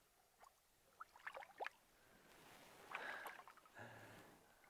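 Faint drips and small splashes of river water as a hand holding a rainbow trout in the shallows lets it go, with a few quick rising plinks about a second in.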